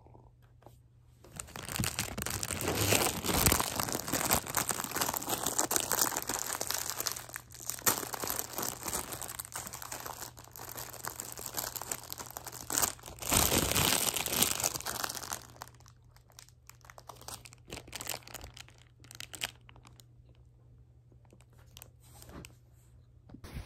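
Crinkling and crumpling of wrapping being handled. It comes in dense, busy stretches for about fifteen seconds, with a couple of short pauses, then thins to scattered lighter rustles and clicks.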